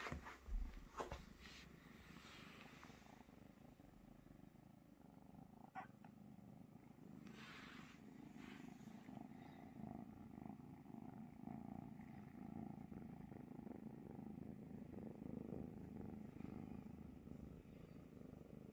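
A kitten purring close by, a steady low purr that grows louder about halfway through. A few short knocks come in the first second, and there is a brief rustle of fur or rug about seven seconds in.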